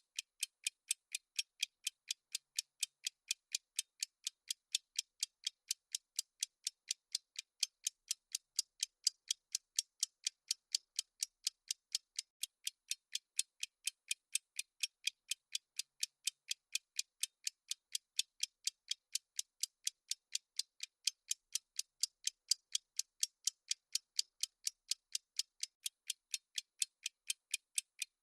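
Clock-ticking sound effect of a countdown timer: fast, even, crisp ticks, several a second, keeping an unbroken steady rhythm.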